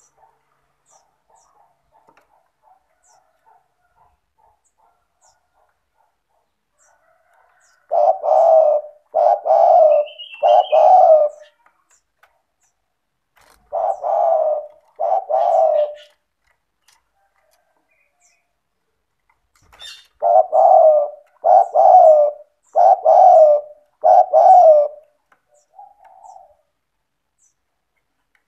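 Spotted dove (tekukur) cooing: after a few seconds of faint ticking, three phrases of low coos, first three notes, then two, then four, with a short soft note after the last phrase.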